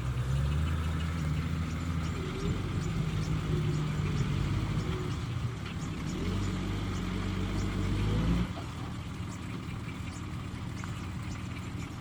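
Heavy diesel engine of a construction machine working under load, its pitch rising and falling with the throttle, then dropping back abruptly to a quieter steady idle about eight and a half seconds in. A faint, regular high ticking sounds throughout.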